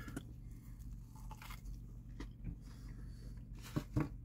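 A man chewing a mouthful of a soft soda bread sandwich filled with egg and bacon, with quiet mouth sounds and two louder smacks near the end.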